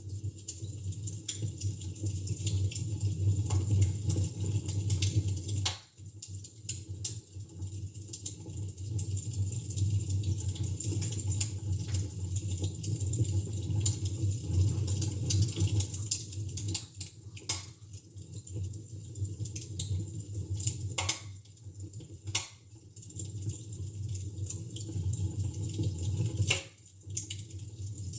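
Fire crackling in a fireplace: irregular sharp pops and snaps, a few louder ones in the second half, over a steady low hum.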